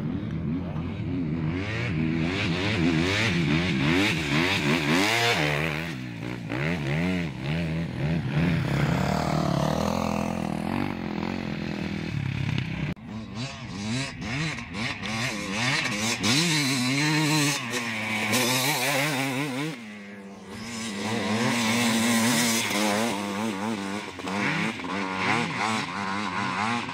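Off-road racing motorcycles revving as they ride past one after another, their engine pitch climbing and falling with each pass.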